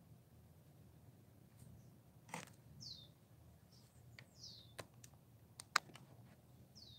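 Cockatiel giving three short whistled chirps, each falling in pitch, a second or two apart, with a few sharp clicks in between, the loudest click about six seconds in.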